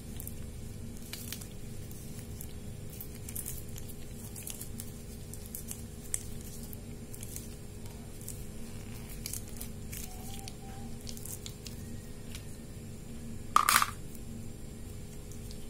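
Hand pipe cutter being turned around a thin plastic tube: faint clicks and scrapes of the tool and gloved hands over a steady low hum, with one louder sharp snap near the end as the tube is cut through.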